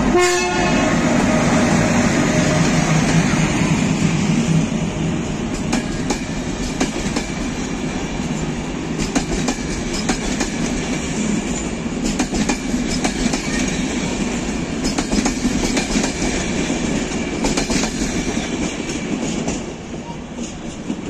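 HŽ class 1142 electric locomotive passing at close range with a steady hum, followed by its passenger coaches rolling by with repeated clicks of wheels over rail joints. The sound fades as the last coach goes by near the end.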